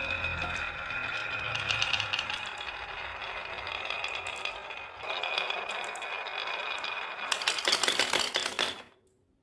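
Marbles rolling and clattering down a HABA wooden marble-run slope, a steady stream of small clicks and rattles. Near the end the clicking grows denser, then cuts off suddenly.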